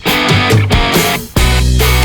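Background rock music with distorted electric guitar and a steady beat; a held bass note comes in about one and a half seconds in.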